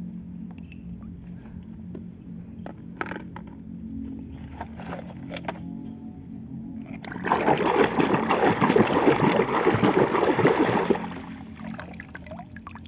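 Water pouring and splashing loudly for about four seconds, starting a little past halfway, as a muddy toy is washed; a few light knocks come before it over a low steady hum.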